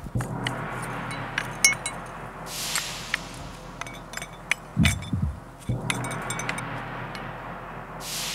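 A wooden stick poking and scraping among broken glass shards, with scattered clinks and ticks. About five seconds in comes a low double thump like a heartbeat.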